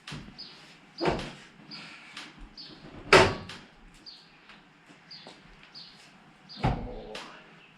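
Three sharp knocks, the loudest about three seconds in, from work on a Toyota Land Cruiser FJ40 body in a workshop. A short, high chirp repeats about every half second.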